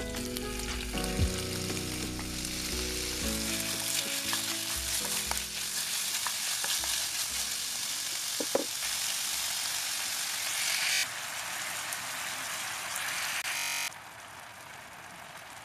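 Diced chicken breast sizzling as it fries in hot oil and garlic in a nonstick pan, with a knock about a second in as the pieces are pushed off a wooden cutting board. Near the end the sizzle drops suddenly to a quieter bubbling once sweet and salty soy sauce are in the pan.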